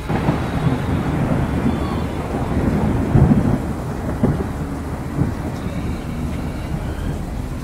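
Wildfire burning close by: a dense, steady rumble with scattered crackles and pops, loudest about three seconds in.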